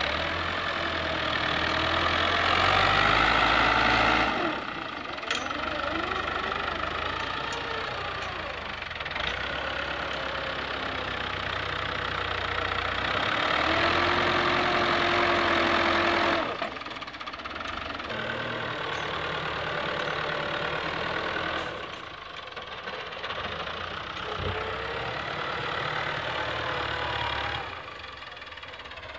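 Fiat 640 tractor's four-cylinder diesel engine working under load as its front blade pushes sand. The engine grows louder and then drops away suddenly in turns, most sharply about four seconds in and again about halfway through.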